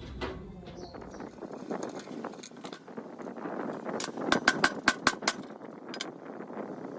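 Workshop handwork on metal parts: an uneven scraping, rustling noise, broken by a quick run of about eight sharp taps or clinks around four to five seconds in.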